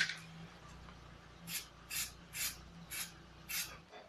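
Aerosol can of white spray paint sprayed onto a child's bicycle frame in short spurts: five brief hisses about two a second, starting about a second and a half in.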